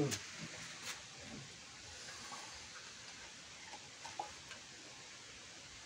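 Quiet background hiss with a few faint, scattered taps, the light handling sounds of a pot lid and banana leaves being moved about.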